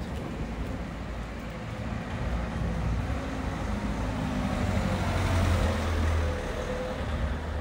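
A motor vehicle passing, its low engine rumble rising to a peak about five to six seconds in and then fading, over steady street traffic noise.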